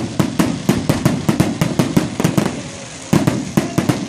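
Fireworks display: a rapid string of sharp bangs from bursting aerial shells, about four a second. The bangs thin out past the middle and pick up again with a loud one about three seconds in.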